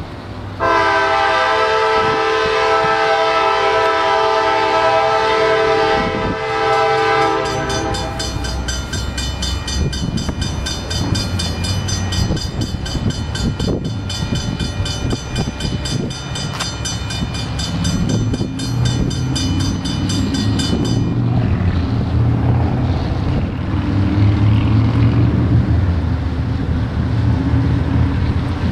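A CSX diesel freight locomotive's air horn sounds a long, loud chord for about seven seconds, then a higher, brighter horn tone carries on until about twenty seconds in. After that the deep rumble of the diesel locomotive and train rolling past takes over.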